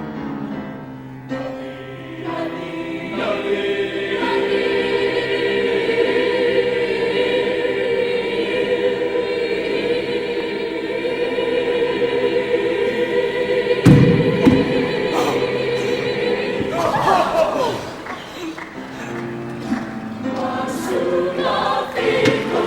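High school show choir singing with instrumental accompaniment, holding a long sustained chord for much of the passage before the music moves on. A single thump sounds about 14 seconds in.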